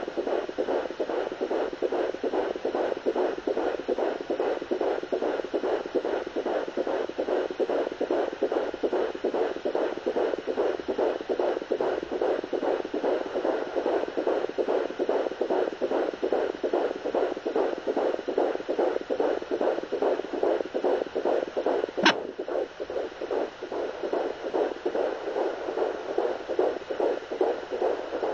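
Fetal heartbeat through a Doppler monitor's speaker: a fast, even whooshing pulse of about three beats a second, near 184 beats a minute. A single sharp click cuts through about 22 seconds in.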